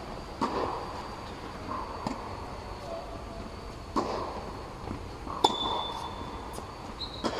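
Tennis rally: sharp pops of racket strings striking the ball, with lighter ball bounces between, about every one and a half to two seconds, echoing under an air-supported dome. The loudest hit, a little past halfway, leaves a brief high ping from the racket strings.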